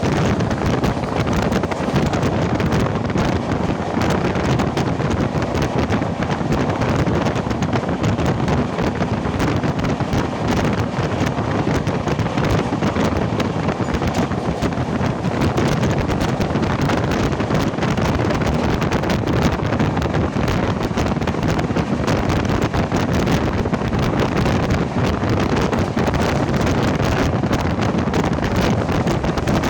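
Steady rush of wind buffeting the microphone from a moving passenger train, over the low rumble of the train running along the track.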